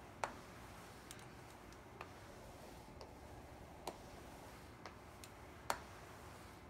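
Mop head tapping on a hardwood floor: short, sharp clicks about once a second, two of them louder than the rest.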